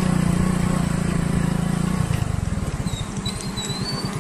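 Motorcycle engine running steadily, then easing off about two seconds in to a slower, uneven putter. A faint high wavering whistle comes near the end.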